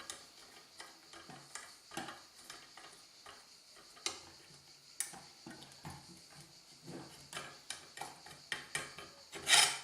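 Scattered light clicks and taps of a cordless circular saw and its parallel guide being handled and fitted, with a louder clatter near the end.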